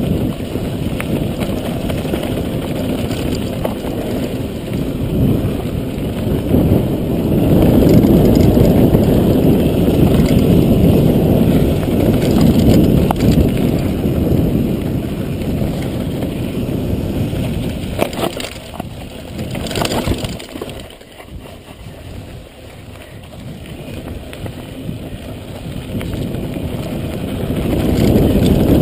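Wind rumbling on the microphone of a mountain bike racing downhill, with the tyres rolling over a dirt trail and a few knocks from the bike over bumps. The rumble eases off for a few seconds about two-thirds of the way in, then builds again near the end.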